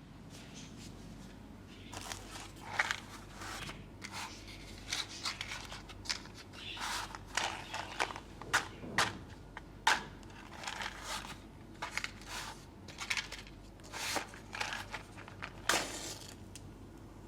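ASMR trigger sounds: a string of short, uneven scratchy noises from objects being handled, starting about two seconds in and fading out near the end.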